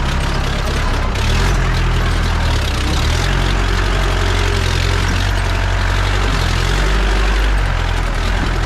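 Jeep engine running steadily as the vehicle drives along a rough track, over a constant rattling road noise; the engine note drops and rises a few times as the speed changes.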